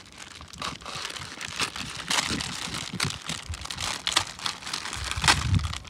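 Plastic instant-noodle packets crinkling and rustling as they are handled and cut open with knives, in many short crackles. There is a louder crackle with a dull thump near the end.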